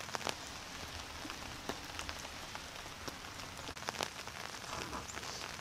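Rain falling: an even hiss with many small scattered ticks of drops.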